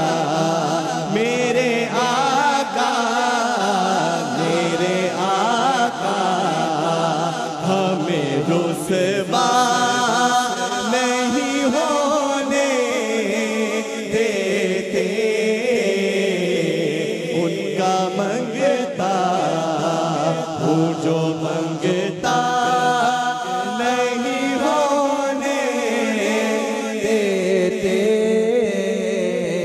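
Two men singing an Urdu naat (a devotional poem in praise of the Prophet) into microphones, taking turns on the lines, in a wavering, ornamented melody over a steady low hum.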